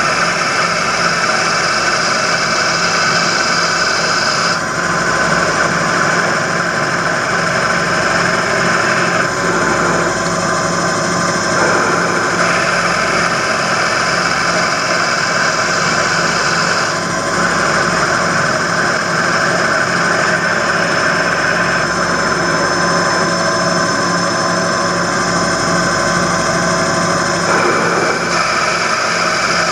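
Small hobby lathe running at full speed while a cutter takes small passes, turning a pool cue's ferrule and tip down to the shaft diameter. The motor sound is steady, and its higher cutting sound changes every few seconds as passes start and stop.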